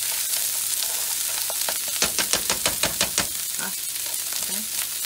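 Frozen green beans sizzling in a nonstick frying pan as they are stirred. About two seconds in comes a quick run of about ten clicks over a second or so, the stirring utensil knocking against the pan and beans.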